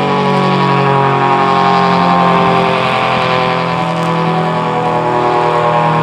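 ACA Cyclone 125 rotating electromechanical tornado siren sounding its steady alert tone, a loud continuous wail holding an even pitch.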